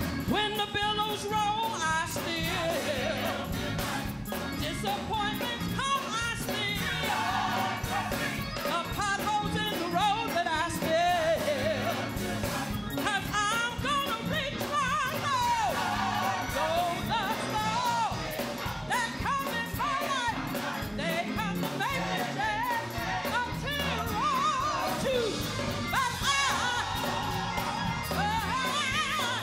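Gospel choir singing, with a woman lead singer on a microphone out front.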